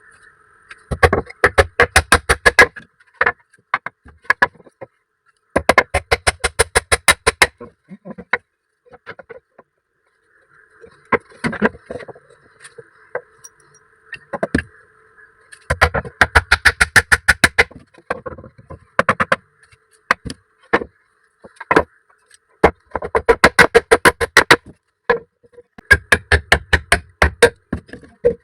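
Fast, even hammer blows on metal at a blacksmith's anvil, several a second, in runs of one to three seconds broken by short pauses. A steady hum sounds between the runs.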